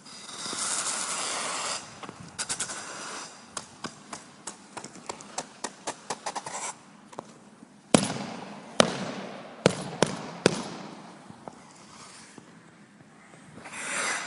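Ice skate blades on ice: a long swish of a glide, then a run of small scraping clicks and several sharp cracks from blade strokes, and another swish near the end.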